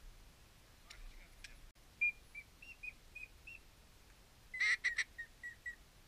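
A run of short, high whistled notes, about six in a row from about two seconds in, then a louder cluster with a few clicks and three more short notes near the end, in the manner of a duck whistle call.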